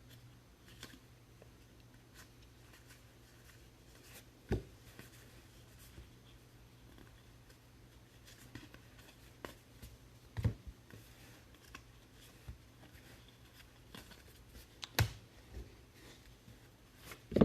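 Baseball trading cards being handled and sorted: faint rustling and sliding with a few light knocks, the loudest about four and a half, ten and a half and fifteen seconds in, over a low steady hum.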